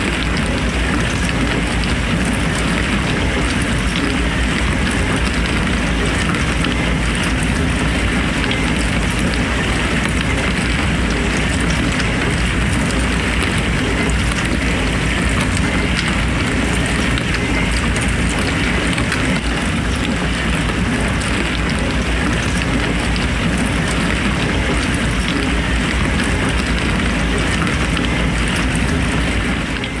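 Dishwasher running: water spraying steadily inside the tub over a low, even motor hum.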